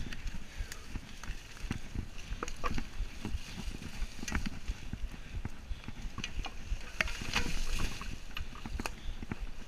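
Mountain bike riding down a leaf-covered dirt trail: tyres rolling over dry leaves and dirt, with frequent sharp clicks and knocks as the bike rattles over bumps, over a steady low rumble.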